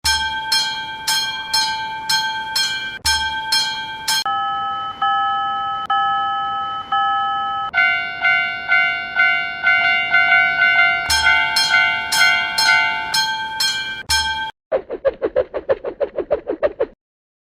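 Synthesized level-crossing warning sounds from an animation: bell-like electronic dings repeating in quick runs, changing pitch and pattern every few seconds with an occasional low thump. Near the end they give way to a fast, lower warbling pulse.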